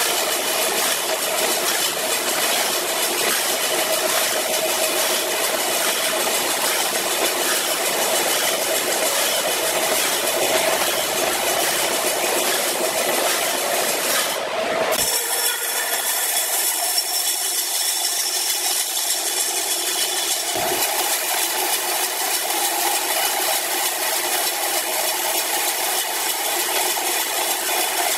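Horizontal band saw mill cutting lengthwise through a large log, a steady dense sawing noise with the machine running. About halfway through the sound changes suddenly, turning thinner and higher as the low end drops away.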